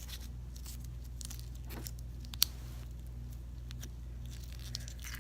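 Faint sticky crackles of slime being pulled apart and added by hand, with one sharp click about halfway through, over a steady low hum.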